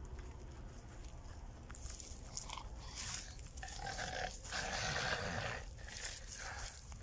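A man snoring, several snores in a row in the second half.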